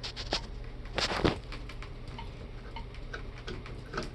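Small clicks and knocks of metal shower trim parts and screws being handled and fitted, with a louder clatter about a second in.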